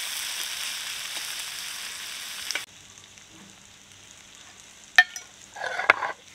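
Chopped onion and whole spices sizzling steadily in hot oil in a kadai, cutting off abruptly about two and a half seconds in. A quieter stretch follows, with a sharp click about five seconds in and a short sound near the end.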